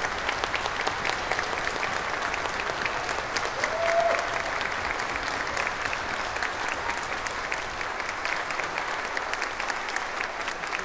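Theatre audience applauding steadily after a concert piece, with one short call from the crowd rising above the clapping about four seconds in.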